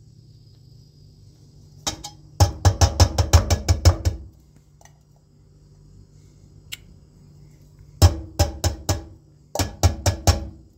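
Rapid knocking of a kitchen utensil against cookware, about eight sharp knocks a second, in three runs: a long one about two seconds in, then two shorter ones near the end.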